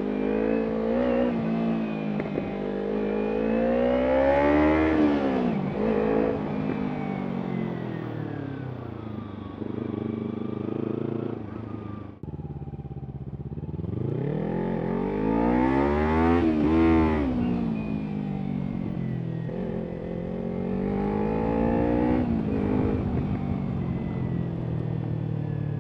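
Kawasaki Ninja 300's parallel-twin engine running through an Arrow exhaust. It revs up and drops back several times as the bike rides, with a brief drop in level about halfway through.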